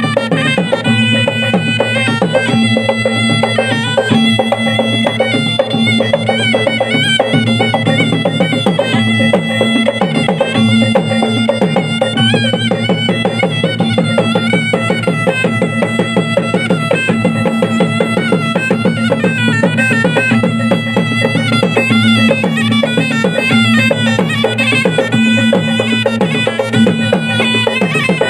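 Tunrung pamanca ensemble playing: fast, dense gendang drumming under a shrill, wavering reed melody, with steady low tones sustained beneath.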